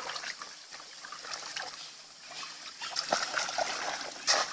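Water trickling and splashing in short irregular bursts, with a louder splash about four seconds in.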